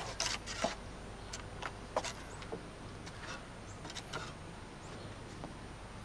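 Short scrapes and light taps of a trowel working hot tar along the edge of a torch-down bitumen membrane, several in the first two seconds, then sparser.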